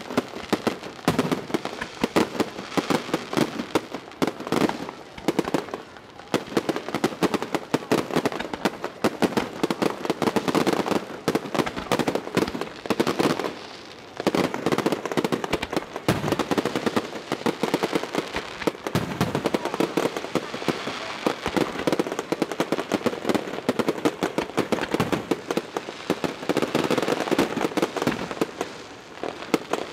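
Aerial fireworks going off in a dense, unbroken crackle of rapid reports, with a brief lull about halfway through.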